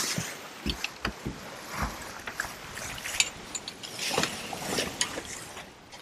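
Sailing yacht under way: water washing along the hull, with irregular clicks and knocks scattered through it.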